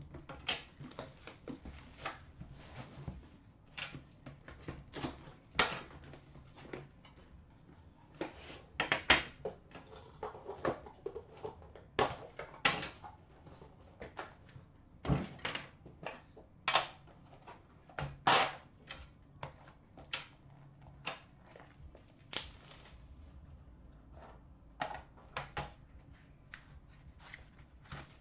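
Metal trading-card tin being unwrapped and opened by hand: scattered clicks, knocks and scrapes of the tin, its wrapping and its lid, in irregular bursts with short pauses between.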